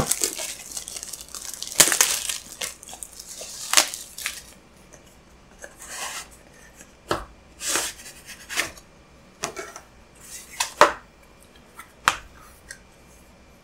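Plastic shrink-wrap being torn and peeled off a small cardboard box, crinkling densely for the first four seconds or so. After that come scattered short rustles and taps as the cardboard box is slid from its sleeve and its flaps opened.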